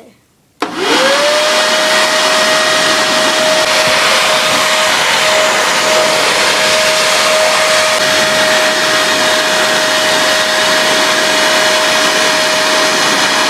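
Electric blower switched on, its motor spinning up with a quickly rising whine about half a second in, then running steadily with a loud rush of air out of its flexible hose.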